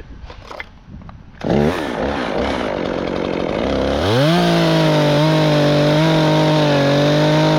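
Chainsaw revs up sharply about one and a half seconds in. At about four seconds it rises to full throttle and holds a steady high pitch with small dips, as it would while cutting through the top of a pine.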